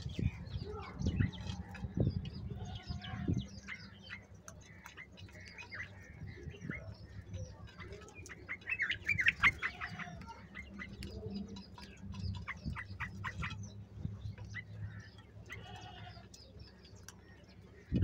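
House crows and common mynas feeding together at clay bowls: many short pecking clicks and a few dull thumps in the first three seconds, with short chirping calls that bunch into a busy burst about nine seconds in.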